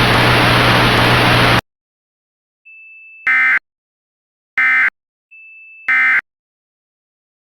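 Loud steady static hiss with a low hum cuts off suddenly about a second and a half in. After a pause come three short electronic data bursts about a second and a quarter apart, the first and last each led in by a faint steady high tone: an Emergency Alert System end-of-message (EOM) signal.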